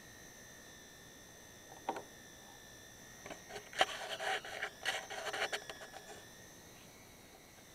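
Handheld Gauss meter (EMF meter) giving off a steady high-pitched electronic tone, its signal for a high EMF reading. A single click comes about two seconds in, and a few seconds of rustling and scraping follow from about three and a half seconds, the loudest sound here.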